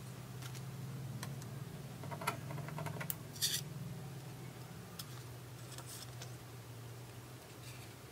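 Light handling of a cardboard photo frame and a plastic film photo card: scattered faint taps and clicks, and a short scraping rustle about three and a half seconds in, as the card is slid into the frame.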